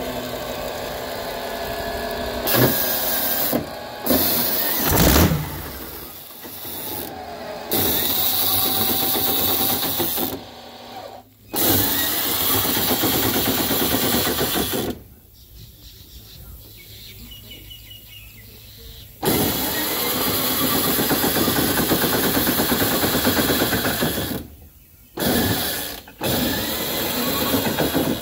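Rolls-Royce Merlin V12 of a vintage hydroplane running through its short open exhaust stacks during a cold-start warm-up. Its level swells and drops back several times, with a quieter stretch of about four seconds in the middle.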